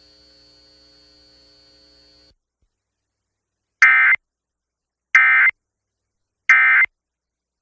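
Emergency Alert System end-of-message tones: three short, loud, identical bursts of screechy digital data, about 1.3 seconds apart, which mark the end of the alert. A faint steady hum before them cuts off about two seconds in.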